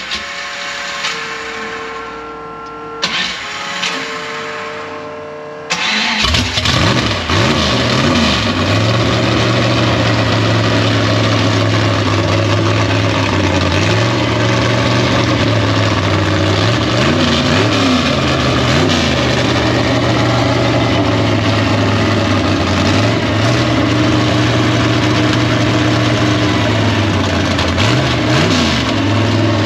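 The 1956 Chevy gasser's engine, on open headers, is cranked and catches about six seconds in, after a steady whine. It then runs loud and uneven with a few quick revs, and it pops back a little because the ignition timing has only been set roughly.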